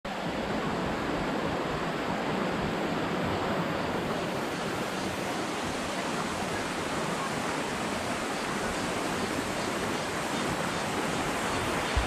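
Rushing water of a shallow, rocky mountain stream flowing over stones, a steady, even rush.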